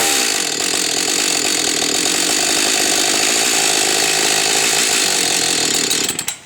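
Husqvarna 562 XP two-stroke chainsaw dropping off high revs into a rough, uneven idle, then dying suddenly about six seconds in. This is the saw stalling once it is hot, the fault the customer complains of.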